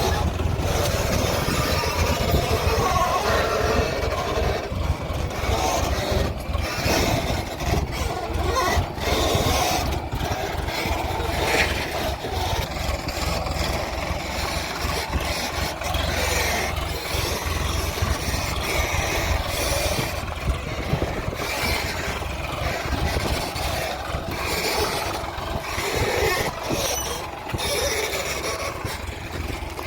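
Diesel engine of heavy earth-moving machinery running steadily under load, with scattered knocks and clatter as mud is dug and loaded into a tractor trolley.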